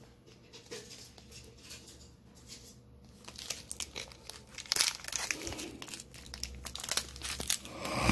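Foil-lined plastic wrapper of a Chewy granola bar crinkling and crackling as it is handled and pulled open. It gets louder about halfway through, with a loud rip at the very end as the wrapper tears.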